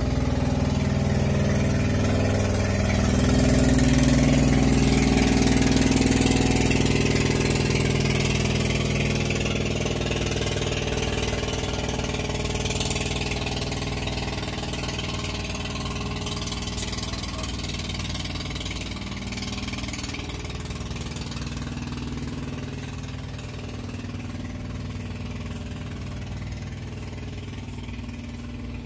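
An engine running steadily, loudest a few seconds in and then slowly fading away.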